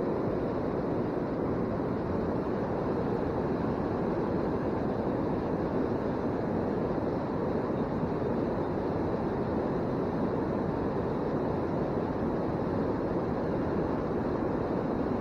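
Steady rushing noise with no tone or rhythm in it, unchanging throughout.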